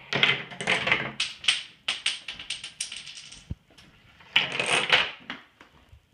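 Small hard parts of a home-made Rube Goldberg chain-reaction machine clicking and clattering as they knock each other over: a fast run of sharp clicks through the first three seconds, then a second short clatter about four seconds in.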